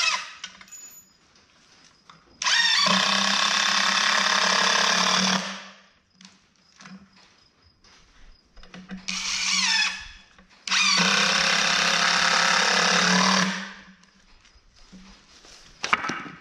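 Cordless drill driving screws into a wooden rack frame. There are two runs of about three seconds each, the motor holding a steady whine under the screw's grinding into the wood, with short trigger blips between them.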